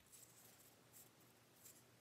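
Faint pencil scratching on a carved wooden bird: a few short strokes as lines are marked on the wood.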